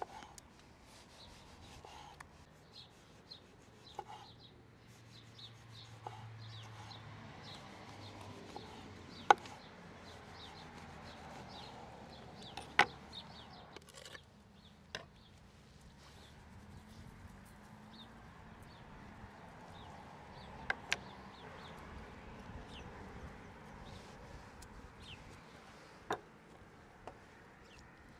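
Small birds chirping over a quiet background, with several sharp knocks scattered through it. The loudest knocks come about nine and thirteen seconds in, and a quick pair comes about twenty-one seconds in.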